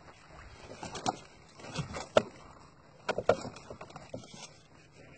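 A gill net being hauled by hand over the side of a small fishing boat, with fish coming in: irregular knocks and splashy slaps against the hull and water. The sharpest knock comes about two seconds in.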